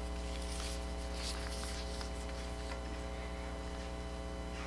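Steady electrical mains hum, a low buzz made of evenly spaced tones, with faint rustling of paper pages about a second in.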